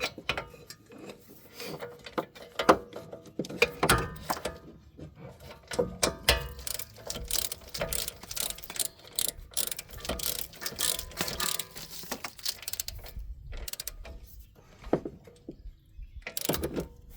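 A socket ratchet clicking in runs of quick strokes as a rear wheel-hub mounting bolt is run in and tightened, with short pauses between runs.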